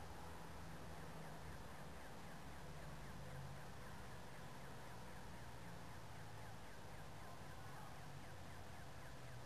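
Faint steady outdoor background with a low rumble, and faint short chirps of house sparrows.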